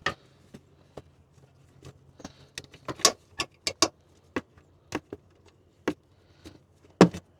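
Irregular sharp clicks and taps of hand work on a car's headlight assembly: the bulb and its plastic connector and wire harness being handled, with the loudest knocks about three seconds in and near the end.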